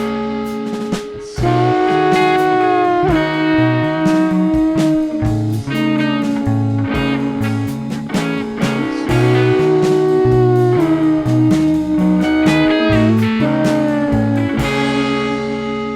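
Live rock band playing without vocals: electric guitar holding long sustained notes over a stepping bass line and drum hits. Near the end the drums stop and the last chord rings out and fades.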